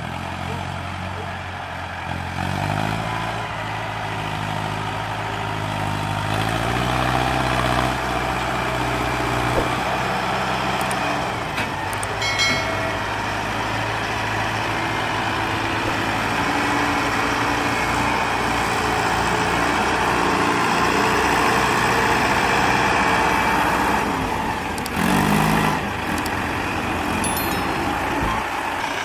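Mahindra Arjun 605 tractor's diesel engine running under load as it pulls a fully loaded sugarcane trolley. Its pitch rises about two seconds in, then holds steady, with a brief louder surge near the end.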